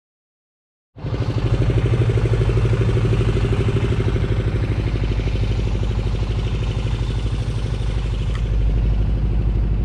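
A boat's engine running steadily with a fast, even throb, heard from on board. It cuts in abruptly about a second in.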